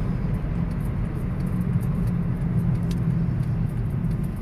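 Steady engine and road noise heard from inside the cabin of a moving car, a low, even hum.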